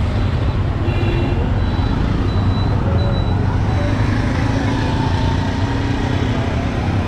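Busy city street traffic at night: a steady, dense rumble of vehicle engines and tyres, with a few faint distant tones over it.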